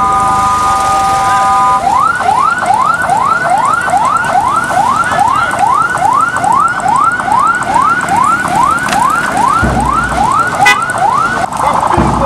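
Electronic vehicle siren cycling through its tones: a steady three-note horn-like tone for about two seconds, then rapid rising whoops about twice a second.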